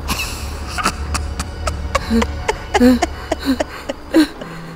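Horror sound effect: a low drone under a rapid series of short, sharp, pitched sounds, about three or four a second. The drone fades out near the end.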